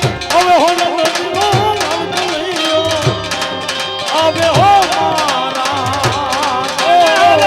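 Instrumental interlude of Gujarati folk music: a tabla beat with bass strokes that fall in pitch, under a wavering, sliding melody line.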